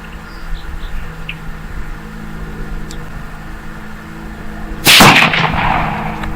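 A single rifle shot from a Ruger American in 5.56 firing a factory .223 round, about five seconds in. The report rings and echoes away over about a second.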